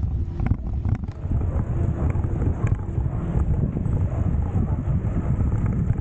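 Wind buffeting the microphone of a camera moving along a road, a steady low rumble with a few light clicks.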